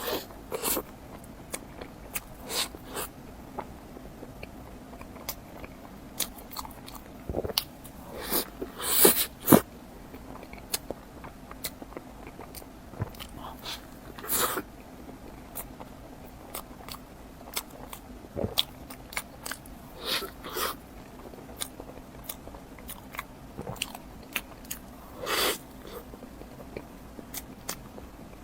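Close-up eating sounds of a person biting and chewing a mango towel roll, a soft cream-filled crepe roll: irregular wet bites, chews and mouth sounds, with the loudest bites about nine seconds in.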